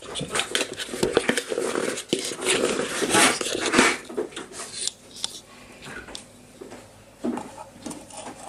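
Plastic scoop scraping and knocking inside a tub of protein powder, busiest in the first four seconds, then a few lighter knocks as powder is tipped into a plastic shaker bottle.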